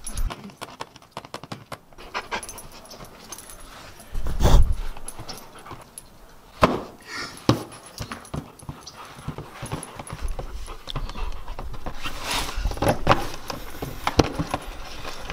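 Siberian husky panting while it bites, paws and scratches at a cardboard box: scattered scrapes, scuffs and knocks of claws and teeth on cardboard, with a heavy thump about four and a half seconds in.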